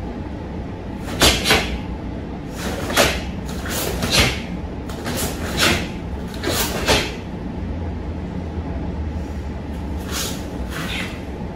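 Quick swishing snaps of a karate gi's sleeves and jacket as fast punches and blocks are thrown: about ten sharp strokes, most in the first seven seconds and two more near the end, over a steady low hum.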